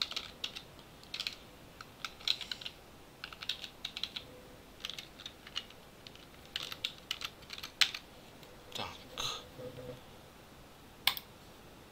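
Typing on a computer keyboard: a run of separate key clicks with short pauses, as a username and password are typed. A single louder click follows near the end.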